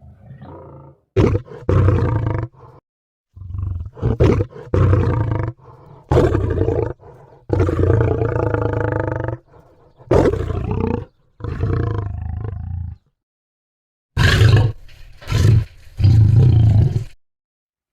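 A cartoon cat-monster's sound effects: a run of big-cat-like roars and snarls, each a second or two long, with short breaks between them.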